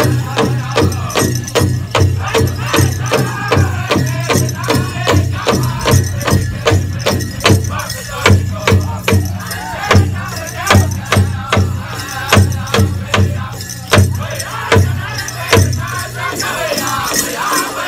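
Powwow drum and singers: a big drum struck in a steady beat of about two strikes a second, under high-pitched group singing, with the jingle of dancers' ankle bells.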